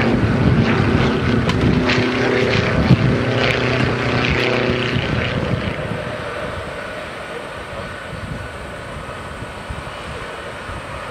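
Boeing C-17 Globemaster III's four turbofan jet engines running as the aircraft rolls along the airfield: a rumble with a steady whine over it, loud for the first five seconds and then easing off.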